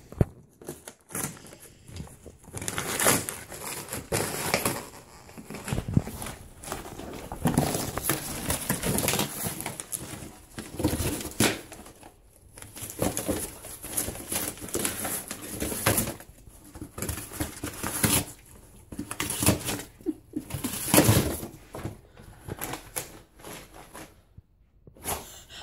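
An Alaskan Malamute tearing apart a cardboard box with its teeth and paws: irregular bursts of ripping and crunching cardboard, with short pauses between.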